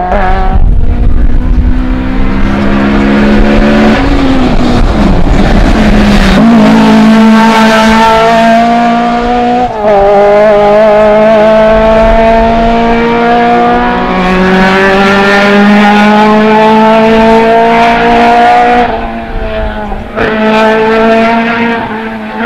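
Toyota Celica RA40 rally car's 18R-series engine running hard under load, its note climbing steadily through each gear and dropping back at upshifts about four, six and a half and ten seconds in. Near the end the throttle lifts briefly and the engine falls quieter before pulling again.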